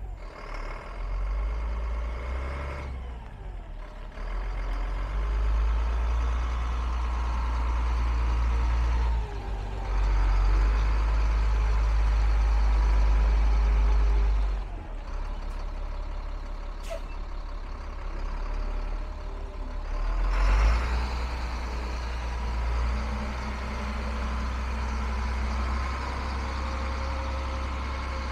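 1996 Kenworth T300 service truck's diesel engine running as the truck drives, its low drone swelling and easing several times, loudest between about five and fourteen seconds in, with a brief surge about twenty seconds in.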